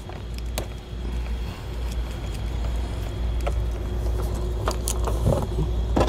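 Wiring harness and plastic interior trim being handled. Scattered light clicks and knocks sound over a steady low hum, with a short cluster of handling noise about five seconds in.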